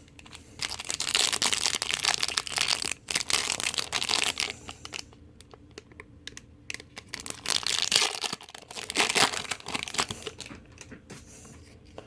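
Trading card pack wrapper crinkling and being torn open, in two stretches of crackly rustling with a quieter pause between them.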